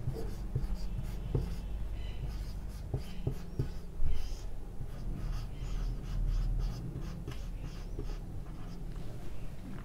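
Dry-erase marker squeaking and scratching on a whiteboard in short, irregular handwriting strokes, with small taps as the tip meets the board. There is one louder knock about four seconds in.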